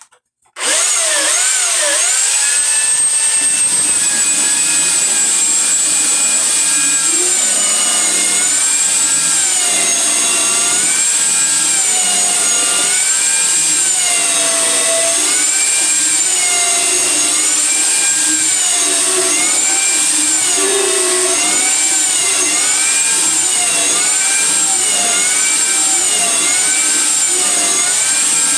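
Power sander switched on about half a second in and running loudly and steadily on wood, its pitch rising and falling about once a second as it is pressed and worked over the surface.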